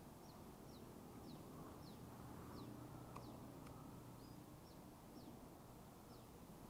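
A small bird calling faintly in a series of short, high, falling chirps, about two a second, over a low steady outdoor hum; two light clicks about three seconds in.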